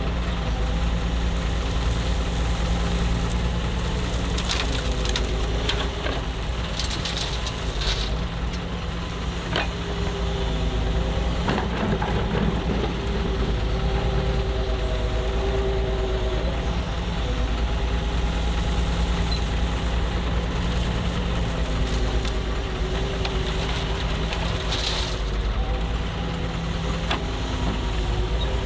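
Heavy diesel engine of construction machinery running, its pitch shifting up and down, with a few sharp knocks and scrapes.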